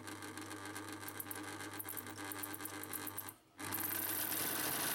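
Singer 99 electric sewing machine running slowly under foot-pedal control: a steady motor hum with the mechanism rattling. The machine is dry and needs oil, and its belt is stiff and squeaking. It cuts out briefly about three and a half seconds in, then runs on louder.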